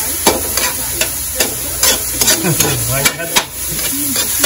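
A spatula scraping and knocking against a metal wok about twice a second while stirring, over the steady sizzle of onion, garlic and tomato sautéing in oil.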